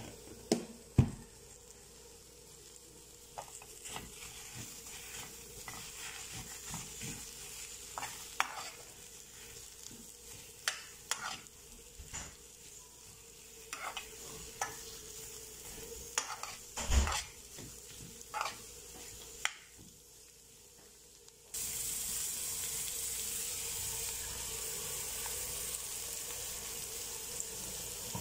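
A metal spoon stirs sliced onions and butter in a frying pan, clicking and scraping against the pan over a faint sizzle. About three quarters of the way in, a louder, steady sizzling hiss starts abruptly.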